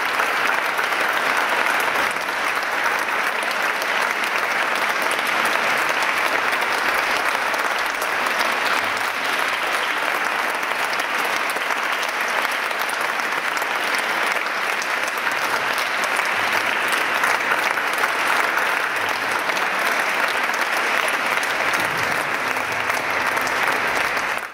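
Audience applauding steadily, cut off abruptly at the end.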